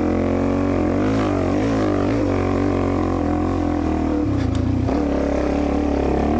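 Dirt bike engine running under changing throttle, its pitch rising and falling, then settling to a steady lower note after about five seconds. A brief click is heard about four and a half seconds in.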